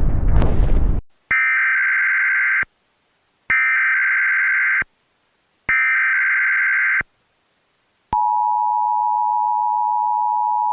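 A noisy blast cuts off about a second in. Then come three short bursts of Emergency Alert System SAME header data tones, a shrill two-pitch digital chirping, followed from about eight seconds in by the steady EAS two-tone attention signal (853 and 960 Hz).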